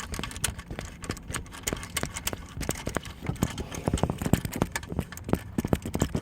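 Ratchet wrench clicking in quick, uneven strokes as it backs out a long alternator mounting bolt, the clicks growing louder in the second half.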